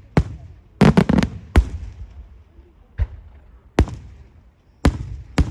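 Daytime fireworks going off: sharp, irregular bangs with short echoing tails, including a rapid cluster of about four bangs about a second in, then single bangs every second or so.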